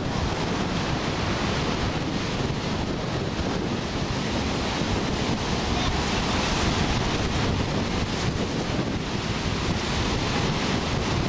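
Ocean surf breaking and washing up the shore, a steady rushing noise, with wind buffeting the microphone.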